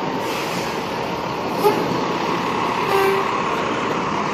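Fire engine running as it pulls away, over steady street traffic noise, with two short horn toots, about a second and a half and three seconds in.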